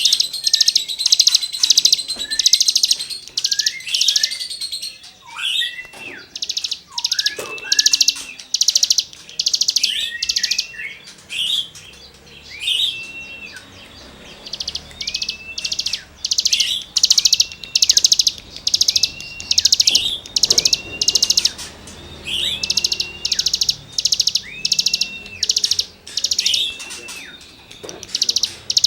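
A cigun (ciblek gunung, a small prinia) singing in full, energetic song: runs of short, harsh rasping buzzes repeated in quick succession, mixed with brief hooked whistled notes.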